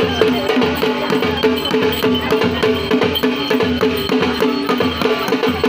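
Drums beating a fast, steady rhythm: rapid sharp strokes over deep, regular beats.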